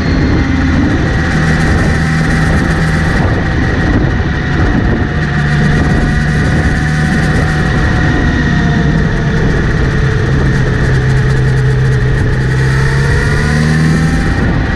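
Kawasaki Z900RS inline-four engine running with the bike in gear, its pitch shifting gently, with a steady whirring buzz that the owner traces to the front sprocket area and that began after the chain was cleaned and relubed.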